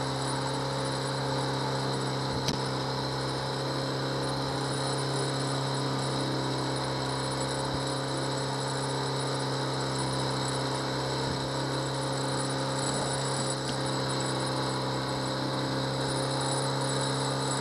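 Honda 8 hp four-stroke outboard kicker motor running at a steady cruising speed, pushing the boat: an even, unchanging engine hum.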